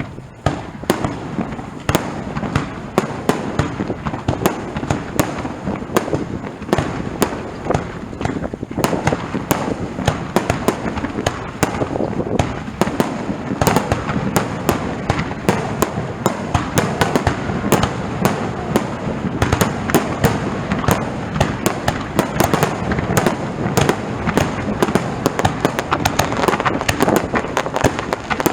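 Fireworks display in a rapid barrage: aerial shells bursting and crackling, many sharp bangs a second without a break, over a continuous rumble.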